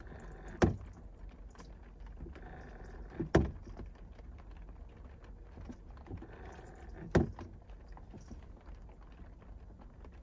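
Small rechargeable water pump at a camper-van sink running weakly in short spells of about a second, its battery nearly flat. Three sharp knocks stand out, each at the end of a spell.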